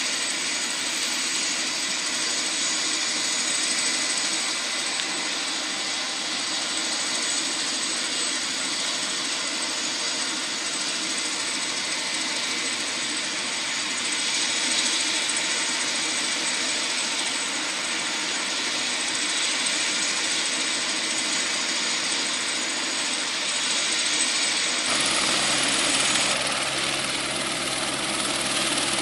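Airbus AS350B1 AStar helicopter running on the ground after start-up: the turboshaft engine whines steadily with a high whistle while the main rotor turns. About 25 seconds in the sound changes abruptly and gains more low rumble.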